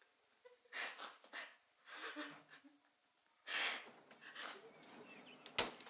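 A teenage girl sobbing: a few short, gasping breaths and whimpers, a second or so apart. Near the end there is a single sharp click.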